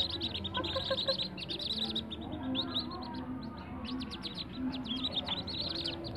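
A brood of whistling duck ducklings peeping, with many rapid, overlapping high-pitched peeps.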